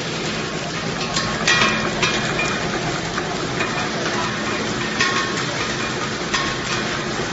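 Horizontal pillow wrapping machine for small candies running, a steady mechanical noise. Irregular sharp clicks and crackles sound over it, the loudest about one and a half seconds in.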